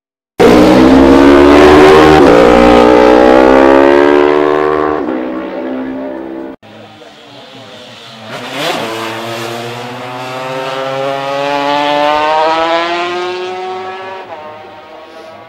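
Racing motorcycles at full speed on a road course. One loud machine starts suddenly, its engine note sliding down as it goes away, and is cut off about six and a half seconds in. Then another bike flashes past close, dropping sharply in pitch, and an engine climbs in pitch as it accelerates and fades.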